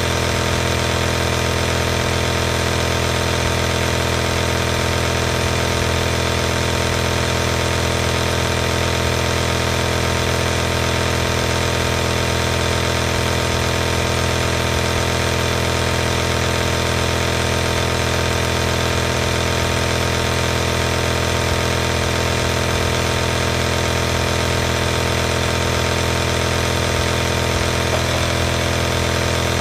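Piston-compressor nebulizer running steadily: an unchanging, close-miked electric motor buzz with no breaks or changes in pitch.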